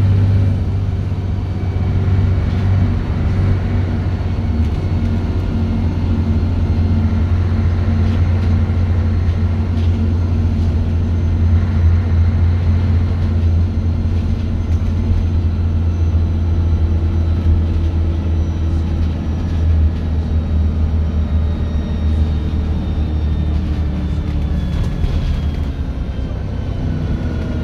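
Scania bus engine running while the bus is under way: a steady, deep drone with higher tones that drift slowly in pitch and glide near the end as the engine speed changes.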